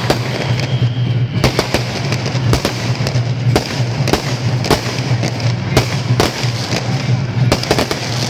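Firecrackers going off irregularly, about two sharp bangs a second, over a steady low hum and crowd noise.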